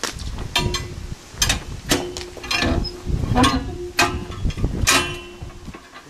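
Concrete mixer's tilt handwheel being turned to tip the steel drum upright: a run of metal clanks and clicks, roughly two a second, several followed by a brief ringing from the drum.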